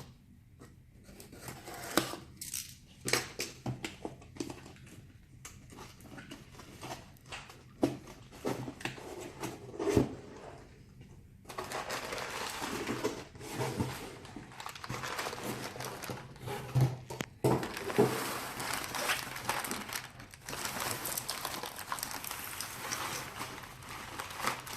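Packaging of a replacement laptop LCD screen being unwrapped by hand: scattered clicks and knocks of handling at first, then, about halfway through, steady crinkling of the wrapping.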